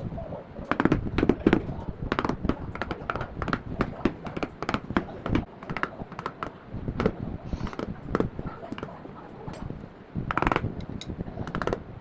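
Irregular sharp knocks and clicks of wood being worked or handled by hand, several a second, with a louder cluster about ten seconds in.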